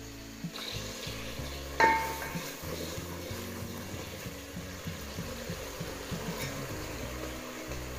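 Tomato sauce sizzling in an aluminium pot as a wooden spoon stirs it. About two seconds in there is a single ringing metal clank.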